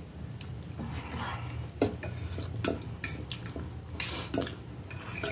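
Fork and knife clinking and scraping against a plate as food is cut, several sharp clicks about a second apart, over a steady low hum.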